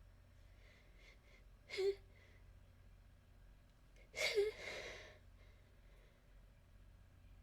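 A woman's gasping breaths: a brief one about two seconds in and a longer one about four seconds in, the build-up before a sneeze.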